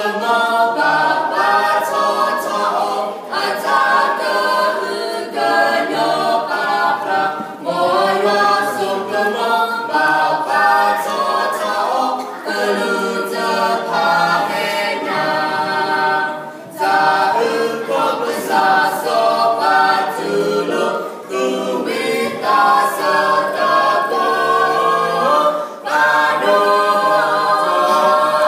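Mixed vocal quartet of two men and two women singing unaccompanied in harmony, in phrases of a few seconds with brief breaks between them.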